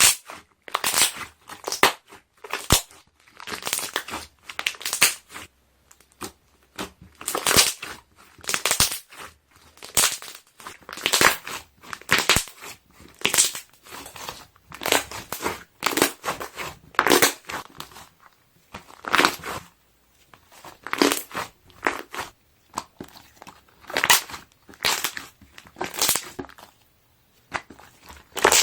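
Slime being pressed and squeezed, trapped air bubbles popping in crackly bursts that come in quick clusters about once a second.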